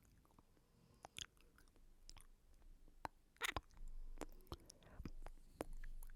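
Close-miked ASMR mouth sounds: scattered wet clicks and smacks, with a louder crackling cluster about three and a half seconds in.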